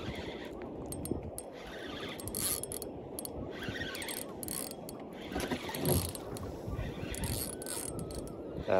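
Spinning reel being cranked to wind in line and retrieve a lure, its gears turning.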